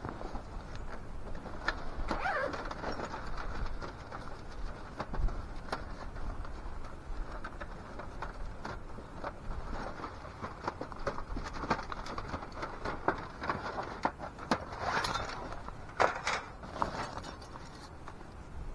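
Scattered light clicks, taps and rustling as parts of a Seek Outside SXL tent stove are handled and fitted together during setup. A brief wavering tone sounds about two seconds in.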